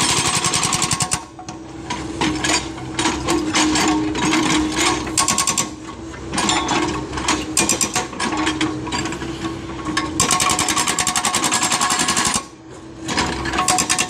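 Backhoe excavator's hydraulic breaker hammering rapidly into hard adobe rock, many blows a second, over the steady run of the machine's engine. The hammering stops briefly twice, about a second in and near the end.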